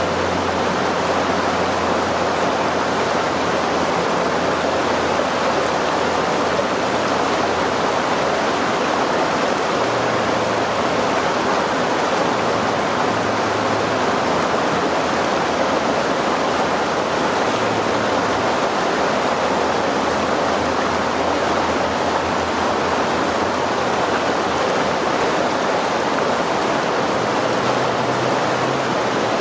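Stream water rushing over rocks in a steady, even wash.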